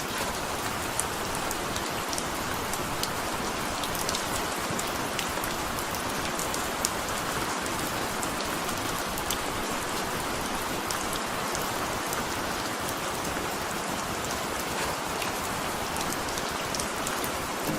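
Steady rain falling, a continuous hiss with many scattered sharp drop ticks.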